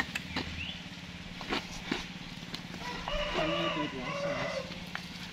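A rooster crowing once, a drawn-out crow of about a second and a half a little past the middle, over a steady low hum and a few scattered clicks.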